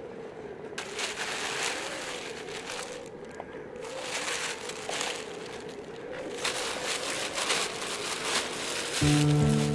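A black plastic bag rustling and crinkling in several bursts as a hand rummages inside it, over a steady wavering hum. Music comes in loudly near the end.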